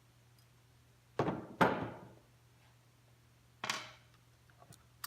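Three short knocks of tools and parts being handled and set down on a workbench, two in quick succession a little over a second in and another about two seconds later.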